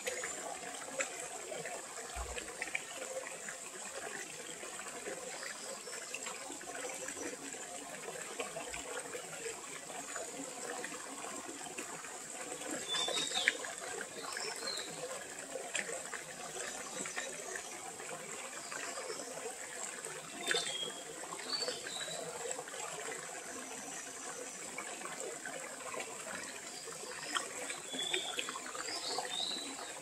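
Mountain valley stream running steadily, an even rush of water, with a few short high chirps near the middle and toward the end.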